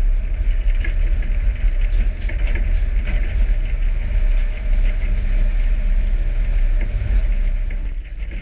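A corn-hauling truck running: a steady low engine and road rumble with light rattles, easing off slightly near the end.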